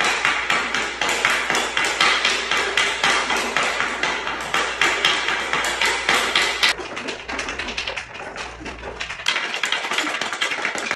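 Hockey stick blade tapping a rubber puck and the hard garage floor in quick stickhandling, several sharp taps a second, a little quieter near the end.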